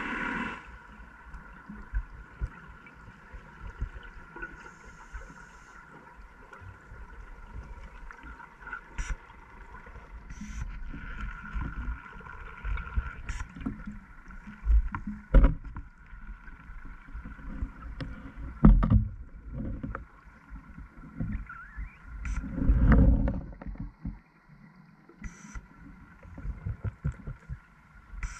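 Underwater sound from a scuba diver's camera: low bubble rumbles from the diver's regulator exhalations, the loudest about every three to four seconds in the second half, over a faint steady hum and scattered light clicks.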